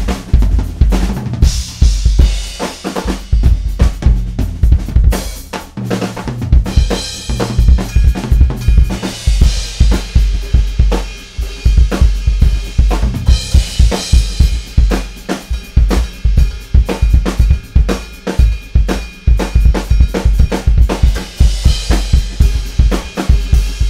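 Drum kit solo, close-miked: fast strokes on snare and toms over frequent bass drum hits, with cymbal crashes and washes coming in several times.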